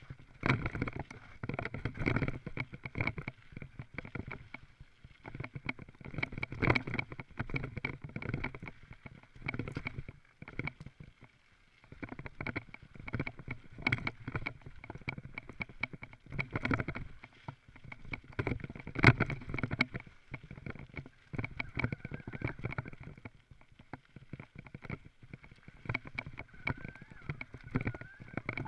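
Mountain bike rattling and clattering as it rides fast over a rough dirt forest trail, with tyre noise and irregular knocks from the bike over bumps. A few sharper knocks stand out, the loudest about two-thirds of the way through.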